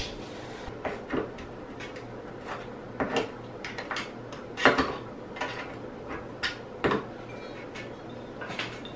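Scattered clicks and knocks, about a dozen spread over the stretch, the sharpest about halfway through, from a curtain rod and its window-frame brackets being handled and taken down.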